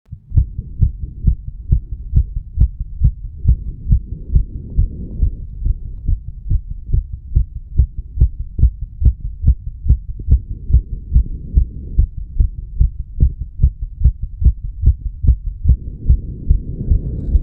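A human heartbeat recorded against the chest over the mitral valve area: a steady, regular run of low lub-dub thuds.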